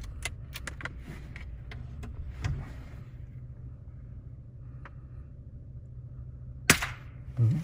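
Steady low rumble of a vehicle running, with a scatter of light clicks in the first few seconds and a single sharp crack near the end.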